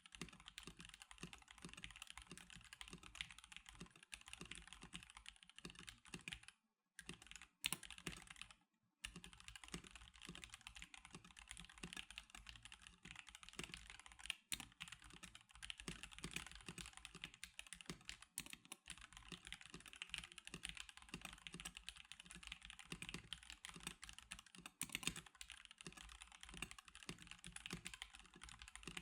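Steady typing on a stock NK87 Darkshake Edition mechanical keyboard, a dense run of key clacks. It breaks off twice for a moment around seven to nine seconds in.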